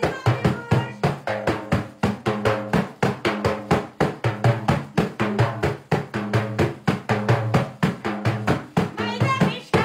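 Large Persian frame drum (daf) beaten by hand in a fast, steady rhythm, about four to five strokes a second, with a low ringing tone under the strokes.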